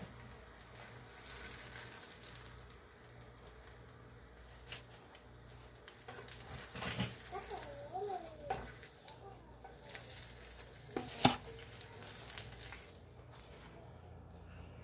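Nylon spatula scraping and tapping on a nonstick griddle pan as fried enchiladas are lifted out of the oil, with faint sizzling from the hot oil; one sharp knock about eleven seconds in.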